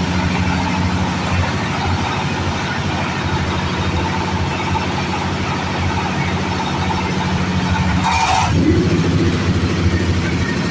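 Engine-driven oil palm loose-fruit thresher running steadily under test. The engine holds an even pitch, with a brief hiss about eight seconds in, after which the machine's note changes slightly.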